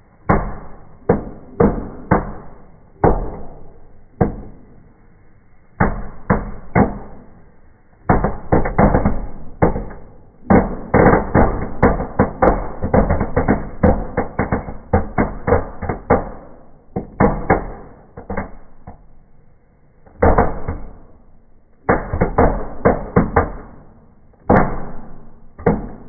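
Firecrackers going off in a fireplace firework arrangement, heard slowed down in slow motion: dozens of sharp bangs in irregular clusters, packed densest in the middle, with pauses of a second or two between groups.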